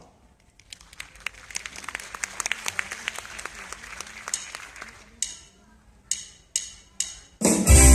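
Audience applauding, thinning out to a few scattered claps. Near the end a children's ensemble of electronic keyboards starts playing loudly.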